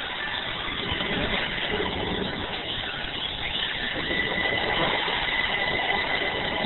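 Steady engine and road noise inside a motorcoach cabin while it drives, with a thin high steady tone becoming clearer about halfway through.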